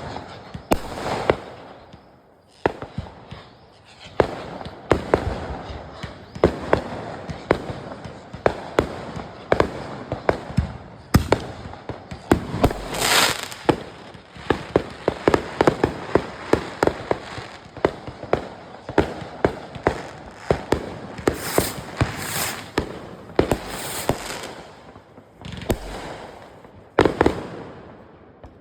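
Fireworks going off in a long, irregular string of sharp bangs and crackling pops, with a few brief rushing hisses mixed in.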